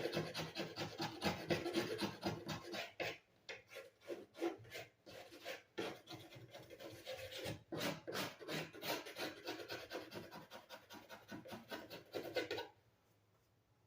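Rapid back-and-forth rasping strokes of a hand tool over the wall surface, knocking down high spots before the tile mat goes on. The strokes stop about 13 seconds in.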